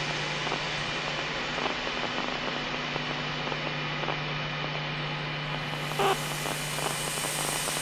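Steady radio-static hiss with a low, even hum from the drone video's soundtrack played over the hall's speakers, and a brief pitched blip about six seconds in.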